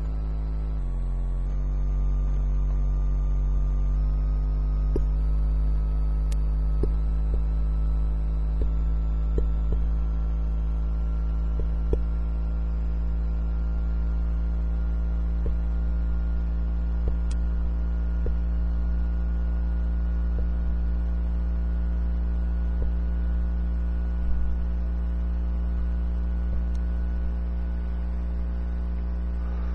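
Steady electrical hum made of several steady tones, some of which shift pitch in small steps during the first few seconds. A few faint ticks from the stylus tapping the Palm TX touchscreen.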